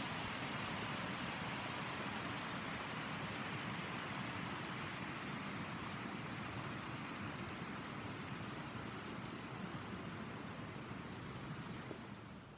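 Steady rushing hiss of meltwater flowing at a thawing pond, slowly fading and dropping away just before the end.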